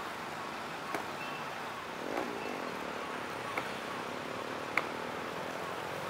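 Steady outdoor background noise of road traffic, with a few short sharp clicks scattered through it, the loudest near the end.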